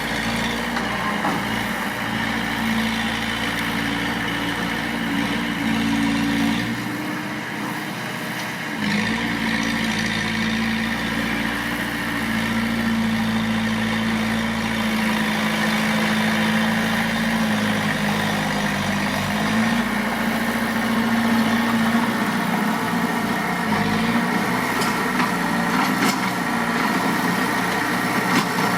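Bulldozer's diesel engine running steadily under work, its note shifting a little in pitch; it eases off briefly about seven seconds in and picks up again about two seconds later.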